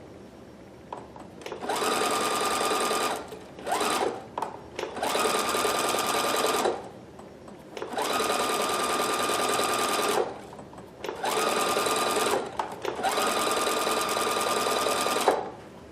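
Electric sewing machine stitching in short runs of one to three seconds, stopping briefly between each run, as it sews back and forth over a tear to mend it. The motor holds a steady tone during each run.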